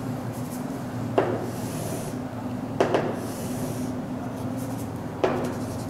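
Chalk drawing on a chalkboard: two scratching strokes, with three sharp taps as the chalk strikes the board.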